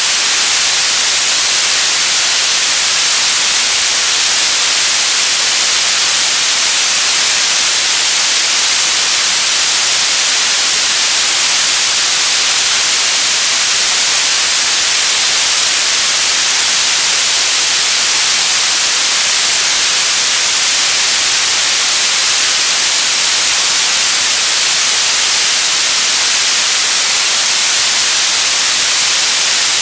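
Radio static: loud, steady hiss of an untuned radio, even throughout with no tones or crackles, bright and weighted toward the high end.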